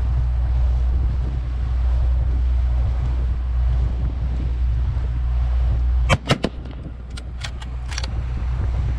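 Small boat's outboard motor running steadily. About six seconds in the motor is throttled back and its drone drops, followed by a string of sharp knocks and clicks.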